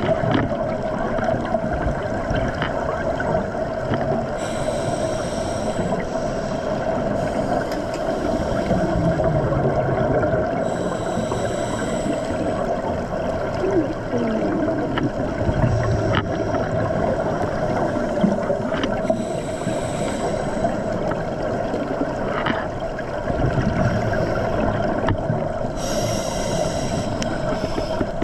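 Underwater recording of a scuba diver breathing through a regulator: a hissing rush of exhaled bubbles about every seven seconds, four times, over a steady underwater hum.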